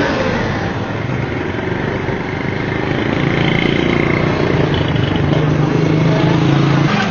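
Motor vehicle engine running with road and wind noise as vehicles drive along a dirt street; the engine note grows stronger over the last few seconds.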